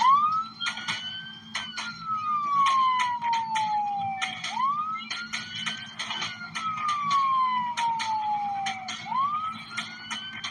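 Police car siren on a wail, each cycle sweeping up quickly and falling slowly, repeating about every four and a half seconds. Irregular sharp clicks and knocks run under it.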